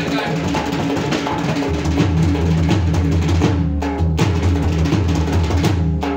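Dhol, the Punjabi two-headed barrel drum, played in a fast, dense rhythm of strikes over steady low sustained notes that change pitch in steps, with a brief break in the drumming about halfway through.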